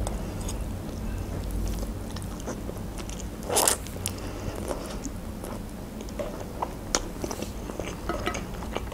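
Close-up eating sounds of a person taking in a mouthful of long green flat noodles: one loud slurp about three and a half seconds in, with soft chewing and small wet mouth clicks around it.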